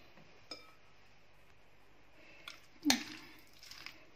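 A fork clinks on a ceramic plate: a small ringing clink about half a second in and a louder knock near three seconds in, followed by light scraping as the potato salad is stirred.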